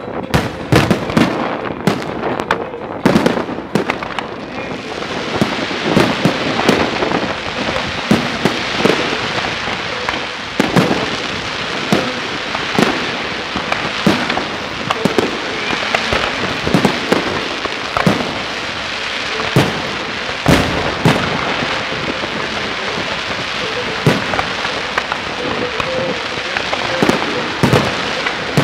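Fireworks display: aerial shells bang in quick, irregular succession, several a second. From about five seconds in a dense, continuous crackle of bursting stars runs under the bangs.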